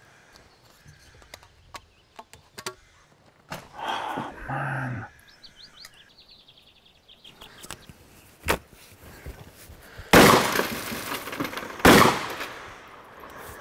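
Two loud shotgun blasts about two seconds apart near the end, each trailing off in a long echo. Earlier there is a brief, louder noisy stretch about four seconds in and a single sharp knock a little past eight seconds.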